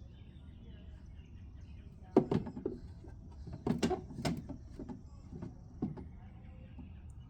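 A pet bird at play, knocking and tapping small toy objects. From about two seconds in there is a run of about nine sharp, irregular clicks and clatters, a few of them with a brief ringing note.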